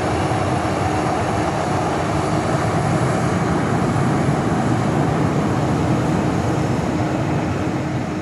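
Airbus A330-300 twin-engine jet airliner climbing away: a steady jet engine roar with a constant hum underneath, beginning to fade near the end.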